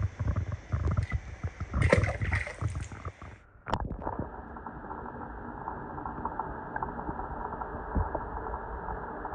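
Water splashing as a small die-cast toy car is dropped into a swimming pool. About four seconds in, the sound turns muffled and steady as the microphone goes under the surface, leaving a dull underwater wash.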